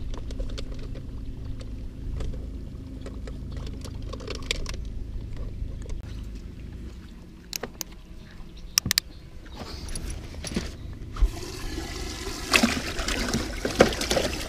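Water rushing and splashing in a bass boat's livewell over the last few seconds, as a caught bass is kept. Before it come a few sharp clicks and knocks from handling the fish and its clip, over a steady low hum.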